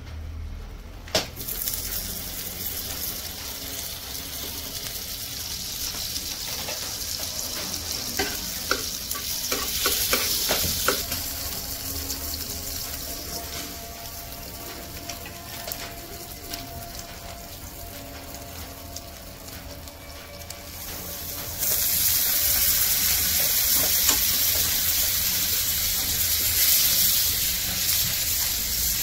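Butter sizzling and frying on a hot nonstick tawa as bread slices toast in it, with a few taps of handling and the spatula. The sizzle grows suddenly louder about two-thirds of the way through.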